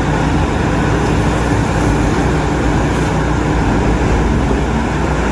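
Steady rushing spray of water washing mud off a toy excavator, running without a break.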